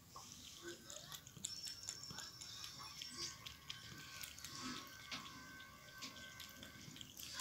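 Cat lapping water from a glass mug: a steady run of faint, quick wet clicks from the tongue.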